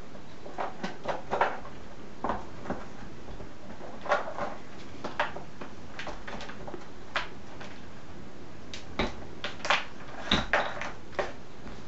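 Kittens at play: irregular light knocks, taps and clatters, some in quick clusters, over a steady background hiss.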